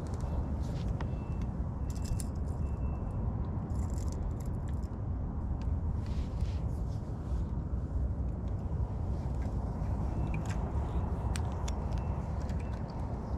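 Shirt-sleeve fabric rubbing and brushing against a body-mounted action camera's microphone, a dense low rumble, with scattered light clicks and ticks from handling the fishing rod and reel.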